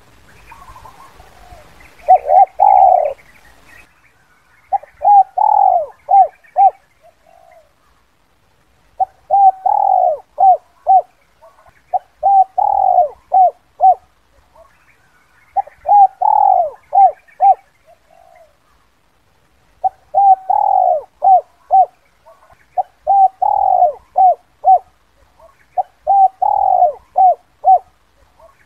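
Spotted dove (tekukur) cooing its 'kuk 2' call. Phrases of a longer coo followed by a few short clipped notes repeat about every three to four seconds, about eight times.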